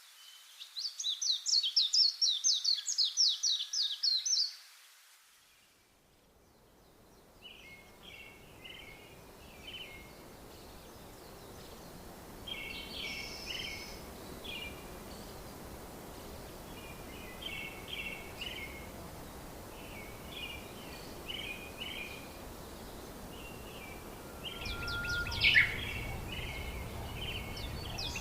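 Birds singing: a fast, loud series of high notes for the first few seconds, then short chirping phrases repeated every few seconds over a steady outdoor hiss. One sharp, louder call comes near the end.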